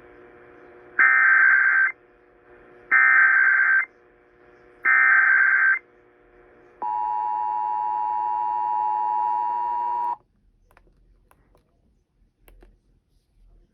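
Emergency Alert System SAME header: three bursts of digital data tones, each about a second long and about a second apart. They are followed by the two-tone EAS attention signal (853 and 960 Hz) for about three seconds, which cuts off sharply. Together they mark the start of a relayed emergency alert.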